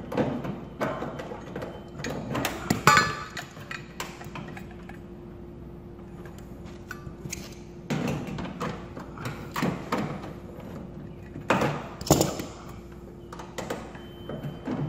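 Clicks, knocks and rattles of hand work on an electric baseboard heater's wiring box as wires and parts are handled with a tool, with a louder metallic clink about three seconds in. The knocking comes in two spells with a quieter gap between, over a faint steady hum.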